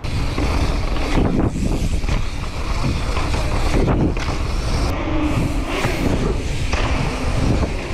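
Wind buffeting the microphone of a helmet-mounted camera as a mountain bike rides fast, mixed with the rumble and rattle of the bike and its tyres rolling over the ground.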